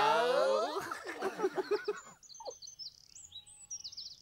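A Teletubby voice calling out in a long, drawn-out cry that bends down and up in pitch, breaking into a few short giggly syllables. From about two seconds in only faint birdsong remains, quick high chirps and trills.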